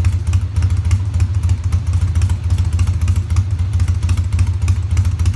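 1998 Harley-Davidson FXDWG Dyna Wide Glide's carbureted Evolution V-twin running at a steady idle through its chrome staggered exhaust, with a fast, even low pulse. The carburetor has just been rejetted and the intake rebuilt, and the choke is off.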